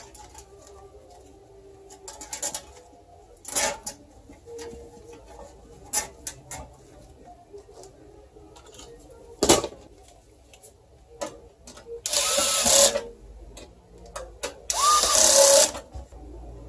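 Electric screwdriver whirring in two short bursts of about a second each near the end, driving screws into the PC case, with its pitch sliding up and down as it runs. Before that, scattered clicks and knocks of parts and cables being handled.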